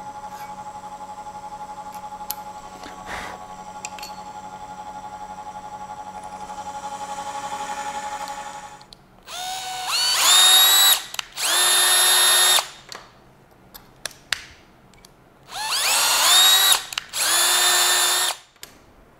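A drill press runs steadily for about nine seconds. Then a cordless drill cuts 8-32 threads in an eighth-inch aluminum bar with a tap, in four short whirring runs in two pairs, each rising in pitch as the drill spins up.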